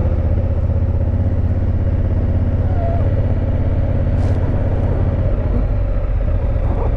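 2019 Honda Africa Twin CRF1000L DCT's parallel-twin engine running steadily at low speed, a constant low drone.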